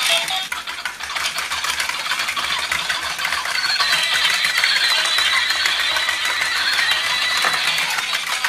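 Battery-powered plastic walking toy horses running: their small geared motors and jointed legs clatter steadily as they walk, with a thin electronic tune from the toys playing over it.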